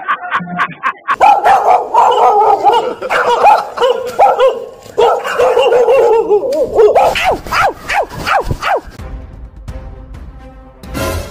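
Recorded dog barking played loud through a portable speaker: a fierce run of repeated barks from about a second in, dying down after about nine seconds.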